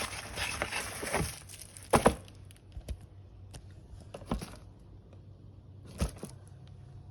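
Crinkling and rustling as something is handled, then a few separate knocks, the loudest a double knock about two seconds in, over a steady low hum.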